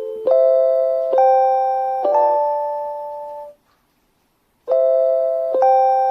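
JR Hokkaido station guidance chime for visually impaired passengers, an electronic bell-like chime. It plays a short phrase of three notes about a second apart, the third struck twice quickly, then fades out. After about a second of silence the phrase starts again with two notes.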